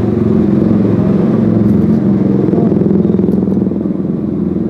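A small engine running steadily close by: a deep, even rumble with a fast regular beat, the loudest sound throughout.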